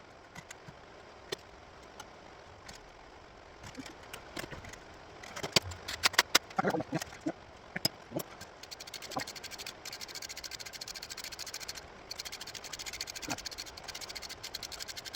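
Hand tools and metal parts clinking and knocking against the engine, loudest about six seconds in. From about nine seconds on comes a fast, even run of clicks, like a ratchet wrench being worked on the timing-chain fasteners.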